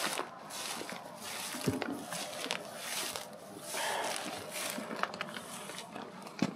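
Footsteps and rustling in brush, with scattered clicks and a dull thump about two seconds in.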